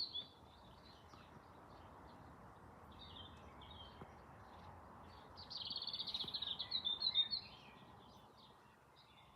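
A small bird chirping high and quick: a few faint chirps, then a louder rapid run of twittering about halfway through, over faint steady outdoor background noise.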